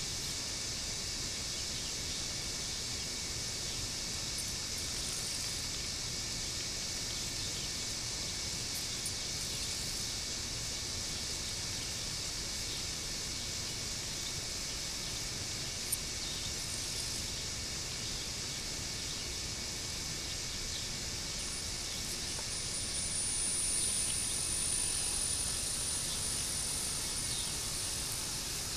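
Steady outdoor hiss, then a high, thin steady whine starting about 21 seconds in as the wheeled robot's drive motors run to move it off across the lawn. One faint click comes partway through.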